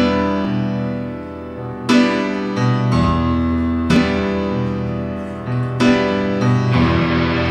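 Grand piano playing a slow intro, a full chord struck about every two seconds and left to ring.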